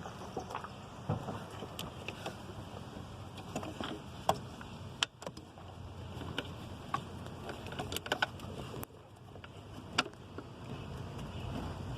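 Wind rumbling on the microphone, with a dozen or so scattered sharp clicks and taps from handling things close to it.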